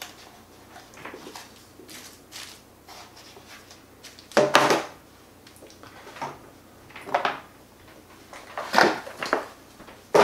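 Drone accessories and plastic carrying cases being handled and packed: scattered rustles, clicks and knocks. The loudest comes about four and a half seconds in, with others about seven and nine seconds in.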